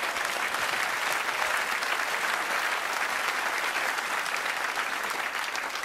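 Studio audience applauding steadily, dying down near the end.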